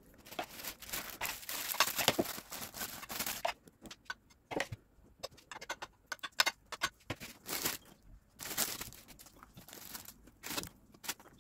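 Kitchen handling noises: a metal spoon scraping and clicking against a glass baking dish as cream is spread, in irregular bursts with scattered light clicks.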